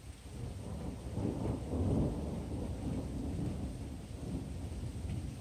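Rolling thunder: a low rumble that swells in about a second in, peaks around two seconds in, then rolls on more softly.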